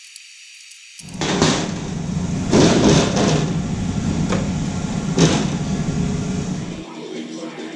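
Mitered steel square tubing being slid and knocked into place on a steel-topped welding table: a scraping rumble of metal on metal, with half a dozen sharp clanks.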